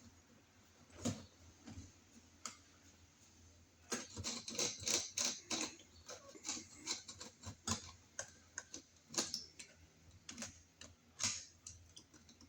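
Small irregular clicks and scrapes of a 6-32 screw with a washer being worked into an electrical outlet box. A few scattered clicks at first, then a dense run of them from about a third of the way in.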